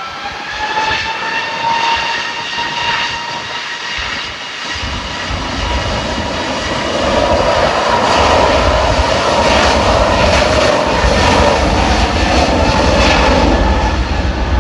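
Large jet airliner's engines at takeoff thrust, passing close: a high whine at first, then a loud roar with a deep rumble builds from about five seconds in.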